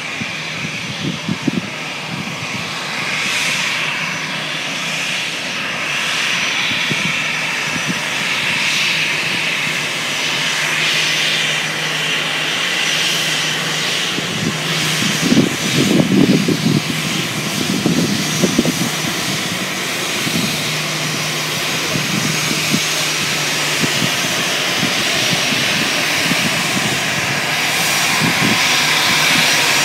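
Airbus A321 airliner's jet engines at taxi power: a steady rushing whine that grows slightly louder as the jet comes close. Some low buffeting rumbles come and go about halfway through.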